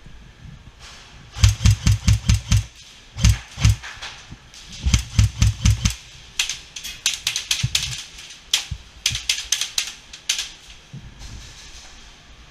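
Airsoft gun firing in several strings of rapid shots, about five a second, with short pauses between strings. The recording is distorted.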